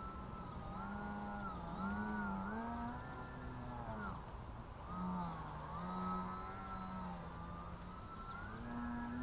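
Small electric RC plane's brushless outrunner motor (Sunnysky 1800kv) and GWS 8x4.3 propeller buzzing. Its pitch rises and falls in smooth swells again and again as the throttle is worked through aerobatic flight, over a steady high whine.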